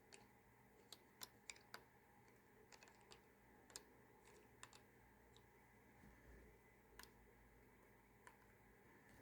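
Faint, irregular light clicks and taps, about a dozen, from small plastic parts of an action camera kit being handled.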